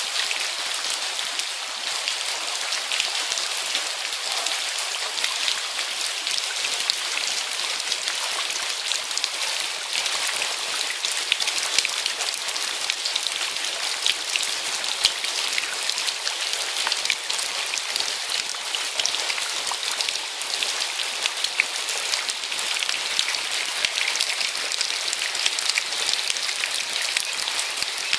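Heavy rain falling on shallow floodwater and wet paving: a steady, dense hiss of rain with many small drop ticks throughout.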